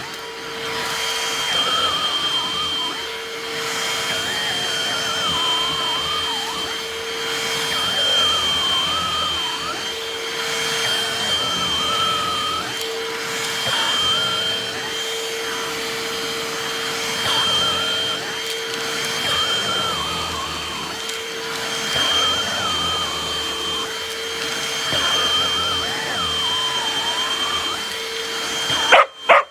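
Cordless hand vacuum running steadily, with a constant motor whine and a higher note that wavers as it works. It cuts off abruptly near the end.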